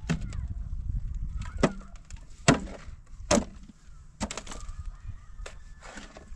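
A pickaxe and a shovel digging stony soil, with dirt and stones tossed into a metal wheelbarrow: sharp strikes and scrapes about once a second over a low rumble.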